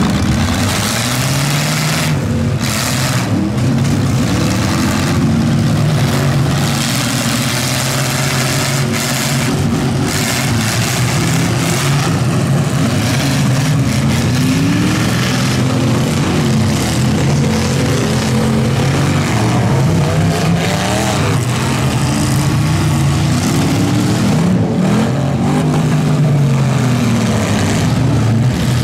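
Several demolition-derby pickup trucks' engines revving up and down at once, their pitches rising and falling over one another, with a few sharp knocks of trucks crashing together.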